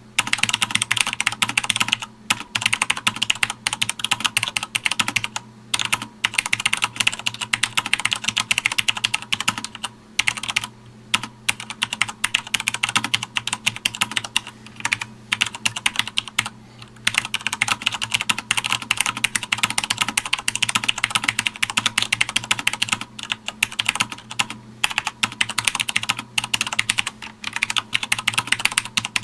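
Fast, continuous touch-typing on a Sanwa Supply SKB-MK2BK mechanical keyboard: a dense clatter of key clicks, broken by short pauses every few seconds.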